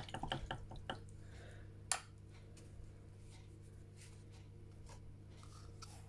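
Faint clicks and rustles of a miniature's holder pot being handled close to the microphone, with one sharp tap just before two seconds in and a few fainter ticks afterwards, over a steady low hum.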